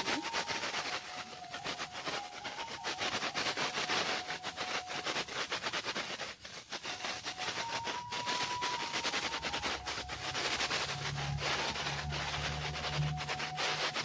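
Sliced shallots sizzling and crackling steadily in hot oil in a wok, with a wooden spatula scraping and stirring them against the pan.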